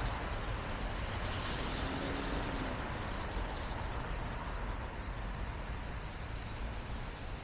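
Steady road traffic noise, motor vehicles running along the street.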